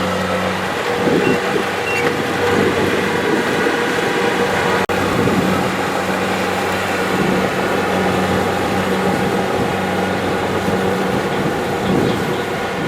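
Kubota DC-70 Plus rice combine harvester working: its diesel engine and threshing machinery running steadily under load, with a brief break in the sound about five seconds in.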